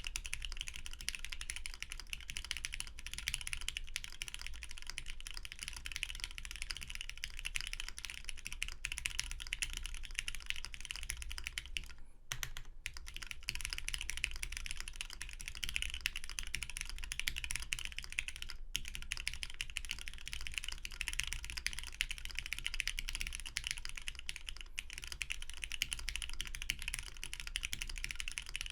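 Custom mechanical keyboard with lubed Cherry MX Black linear switches, a UHMWPE plate and GMK keycaps, being typed on steadily and quickly, with a short pause about twelve seconds in.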